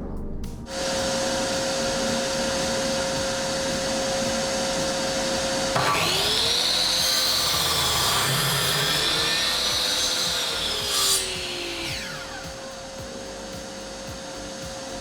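Electric power saw running, cutting through wood from about six seconds in to about twelve seconds in, its whine dipping and rising in pitch under load, then running on after the cut.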